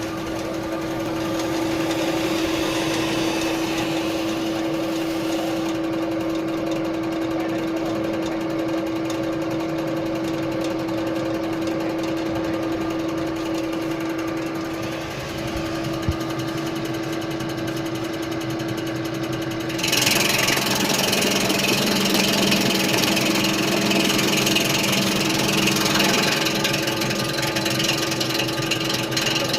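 Electric sausage slicing and dicing machine running with a steady motor hum; about twenty seconds in it turns louder and harsher.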